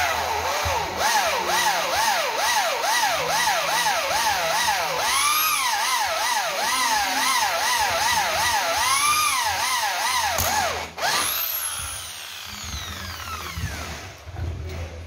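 Corded electric hand drill running, its motor pitch rising and falling over and over about twice a second. About eleven seconds in it revs up once more and is let go, winding down in a long falling whine.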